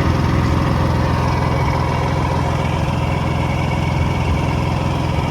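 Predator 11500 portable generator's engine running at a steady speed, a loud, even drone that does not change.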